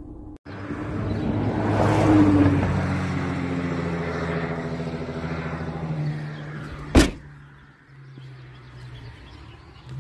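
A car passing by on the street, swelling and then fading, its pitch dropping as it goes past. About seven seconds in comes one loud slam: the packed car's trunk being shut.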